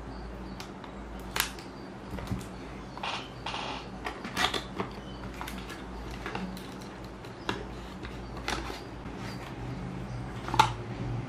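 Fingers and nails picking at and prying open a small paperboard box: irregular sharp clicks and short rustling scrapes of card as the flaps come open, over a low steady hum.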